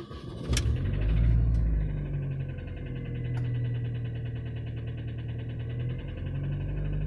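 Supercharged 1.6-litre four-cylinder engine of a Mini Cooper S R53 running with a fast, even rattling tick over its hum and a faint thin whine. The owner fears the rattle-knock, which came on suddenly while cruising, could mean engine failure.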